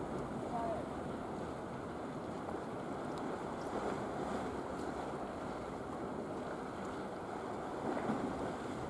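Steady wash of wind and sea, with wind buffeting the microphone.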